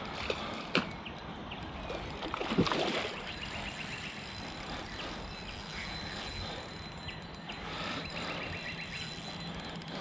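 Steady hum of road traffic with small splashes and clicks from a hooked carp thrashing at the surface close to the bank, busiest about two and a half seconds in.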